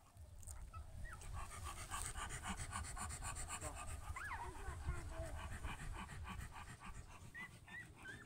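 Newborn puppies making small sounds: a rapid, rhythmic panting of about five breaths a second, with a few short high squeaks.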